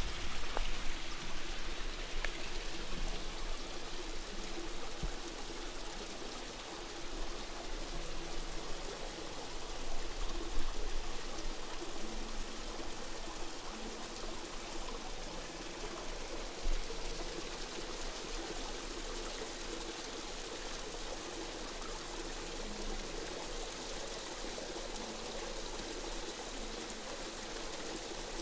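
Steady running water, a little louder and more uneven in the first half.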